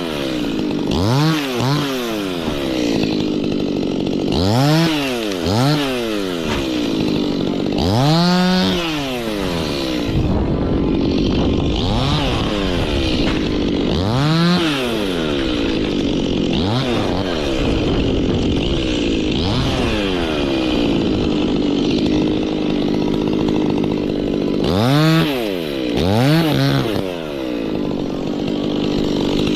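Two-stroke chainsaw revving up and down repeatedly, its pitch rising and falling back every second or two. Through the middle stretch it holds a steadier, lower pitch with smaller swells, then gives two sharp revs near the end.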